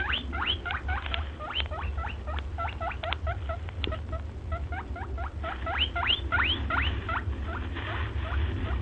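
Rapid, high-pitched squeaking from small animals: many short rising chirps, several a second and overlapping, over a steady low hum.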